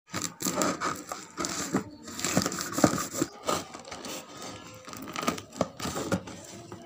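Kitchen knife slitting the packing tape along the seam of a cardboard box: irregular scraping and crackling of tape and cardboard, with many sharp clicks.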